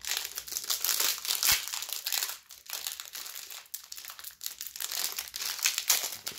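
Foil wrapper of a 2021-22 Upper Deck CHL hockey card pack crinkling as it is handled and opened, with irregular crackles and a sharp tick about one and a half seconds in.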